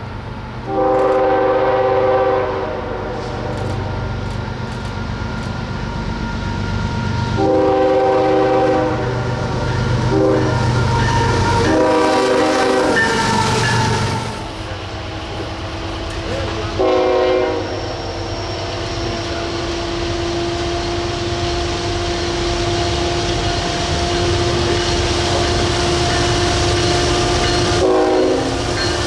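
Multi-chime locomotive air horn sounded in a series of chord blasts, some short and some held for a second or two, over the low rumble of a train. After about fourteen seconds a lower, steady tone holds for about a dozen seconds, and a short horn blast comes near the end.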